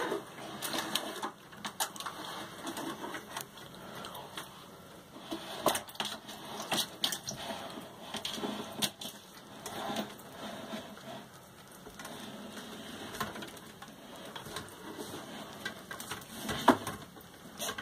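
Black-throated monitor crunching and chewing a chicken leg, with irregular cracks and crunches of bone.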